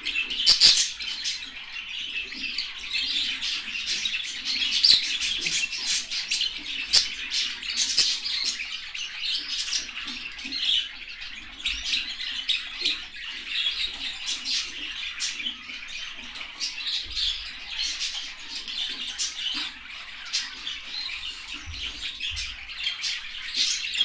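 Small pet parrots chirping and chattering without a break, a dense run of short, high notes.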